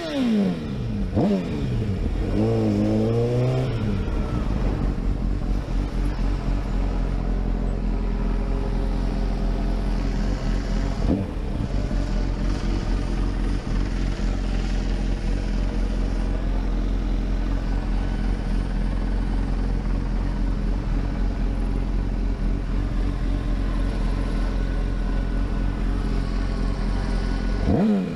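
Honda CBR1000RR sportbike's inline-four engine revving hard through the gears as it pulls away, the pitch climbing and falling at each upshift. It then settles into a loud steady rush of wind and engine at high speed, with another short rev near the end.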